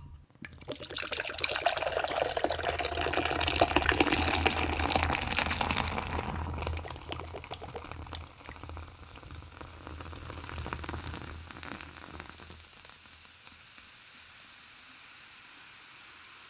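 Fizzy strawberry-lime cider poured from a can into a glass, splashing and foaming for about eight seconds. The stream then thins, and the fizz fades out about twelve seconds in as the head settles.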